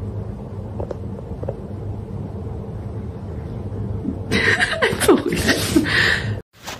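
A steady low hum, then, about four seconds in, a person's breathy, bursting laughter that cuts off abruptly.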